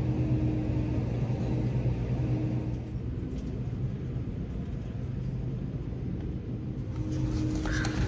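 Shopping cart wheels rolling over a hard store floor: a steady low rumble over a constant hum, with a brief rustle near the end.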